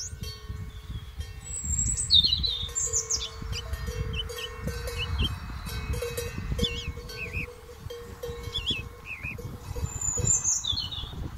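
Cowbells on grazing cows clanking irregularly, short ringing strokes again and again. Small birds chirp and twitter throughout, and an uneven low rumble sits close to the microphone.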